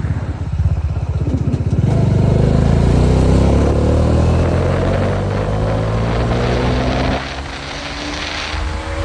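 Bajaj Dominar 400's single-cylinder engine and exhaust pulling, its note rising steadily for about five seconds. About seven seconds in, the pitch and level drop suddenly, then start climbing again.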